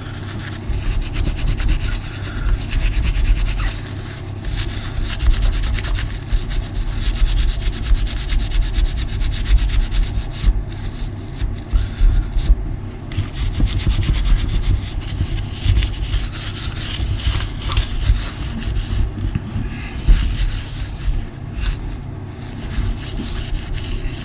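Cleaning wipes scrubbing a muddy nitro RC buggy, a continuous irregular rubbing that rises and falls with the strokes.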